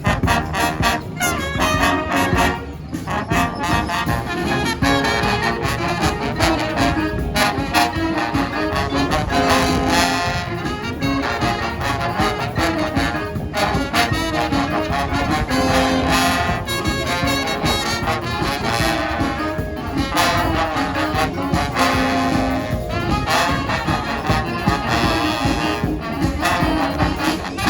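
Street brass band playing live: trombones and trumpets in full ensemble over percussion keeping a steady beat.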